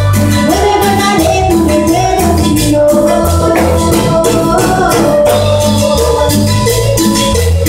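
Live Latin dance band playing loudly, with conga and shaker percussion keeping a steady beat under a pulsing bass and a woman's sung melody.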